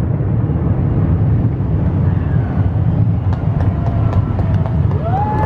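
A steady low rumble of distant city noise, with an emergency siren beginning to wail near the end, rising and then holding its pitch.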